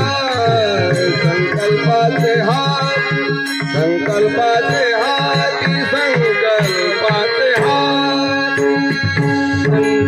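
Marathi devotional kirtan music: a male voice sings a wavering, ornamented melody over sustained harmonium-like tones and a steady hand-drum rhythm.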